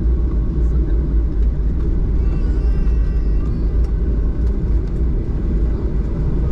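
Boeing 737-800 cabin noise during the landing rollout: a loud, steady low rumble of the wheels on the runway and the engines as the jet slows, heard from inside the cabin by the wing.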